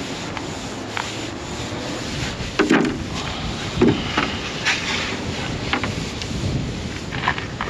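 Cloth rag rubbing stain along pine boards, with a couple of wooden knocks about two and a half and four seconds in as the boards are handled, over wind buffeting the microphone.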